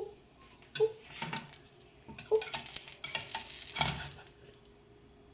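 A spatula scraping and knocking against a frying pan while a pancake is worked loose to flip it, with a faint sizzle of frying batter. There are several short scrapes and knocks, which stop about four seconds in.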